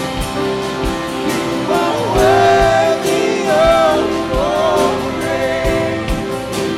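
Live worship band playing a slow song with a singer's voice leading, over electric and acoustic guitars, keyboard and a drum kit with a steady kick drum beat.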